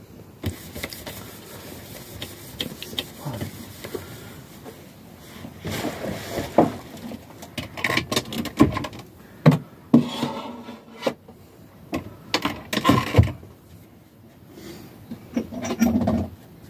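Someone handling objects in a camper: scattered knocks and clicks with several short bursts of rustling and clatter.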